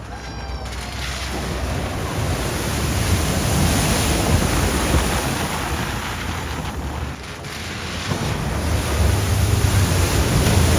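Rushing, splashing water as vehicles drive through a flooded ford, with a deep rumble underneath. It swells to a peak a few seconds in, dips about two thirds of the way through, then swells again near the end.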